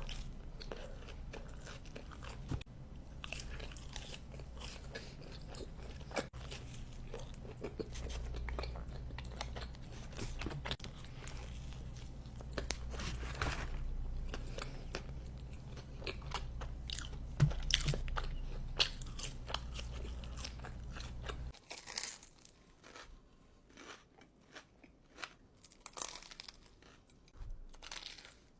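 Close-miked eating: crunchy food being bitten and chewed, with many sharp crunches. A low steady hum under the crunching stops suddenly about 21 seconds in, and the crunches continue over near quiet.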